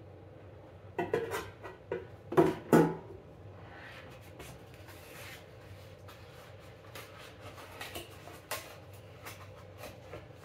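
Air fryer basket parts being handled and fitted: several sharp clacks in the first three seconds, then lighter rustling and small clicks.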